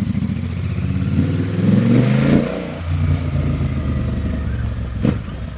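Royal Enfield Continental GT 650's 648 cc parallel-twin running with its exhaust silencers removed, so the header pipes exit open. The revs climb for a second or two, fall away about two and a half seconds in, then hold steady. There is one sharp pop near the end.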